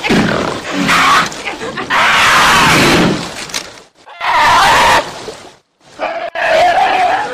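Harsh animal snarls and hisses from a cougar and a brown bear cub squaring off: three loud rasping bursts about a second long with short gaps, the last with a wavering cry in it.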